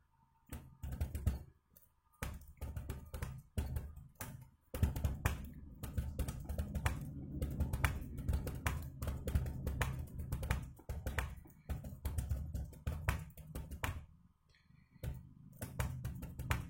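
Fast touch-typing on a computer keyboard: a quick, irregular stream of key clicks, with brief pauses about two seconds in and again near the end.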